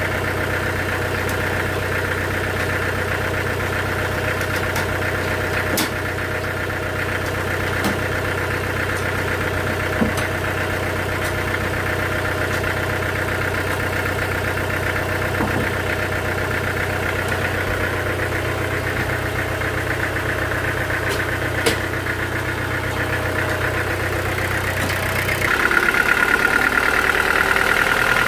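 Sawmill machinery running steadily with a low hum and a few sharp knocks. About 25 seconds in, the low hum drops away and the sound turns louder, with a higher steady whine.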